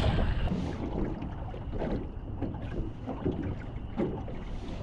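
Choppy water lapping and slapping against the hull of a small boat, with wind buffeting the microphone.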